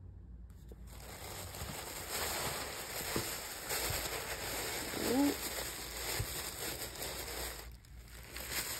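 Tissue paper rustling and crinkling as hands dig through it and pull it apart. A short hum of a voice about five seconds in.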